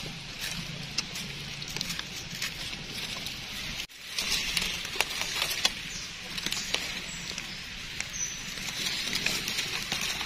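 Rustling and crackling of forest-floor leaf litter, with many scattered small clicks and snaps, as someone moves through and handles it. The sound breaks off for an instant about four seconds in.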